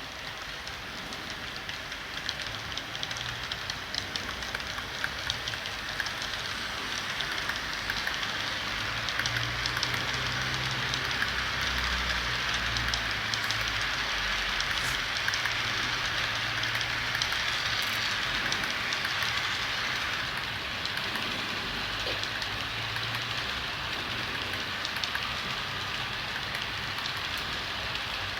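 Freight train rolling past: a steady rush of wheel noise with many small clicks over a low hum. It swells from about a quarter of the way in and eases off after the middle.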